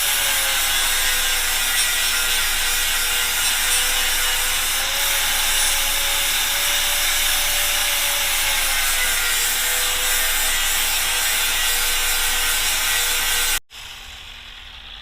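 Angle grinder with a flap disc grinding a bevel on the end of a 4-inch Schedule 80 pipe: a steady loud grinding rasp over the motor's whine, which sags and rises slightly in pitch as the disc is pressed in. It cuts off abruptly near the end, leaving a much fainter steady noise.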